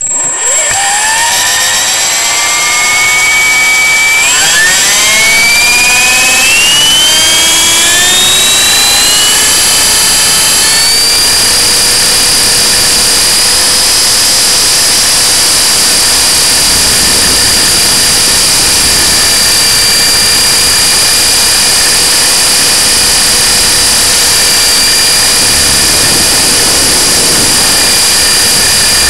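E-Sky Honey Bee King 3 electric RC helicopter's motor and rotor, heard from a camera mounted on the helicopter. The motor spools up from a standstill, its whine rising steeply in pitch over the first ten seconds or so, then holds a steady high whine through the flight.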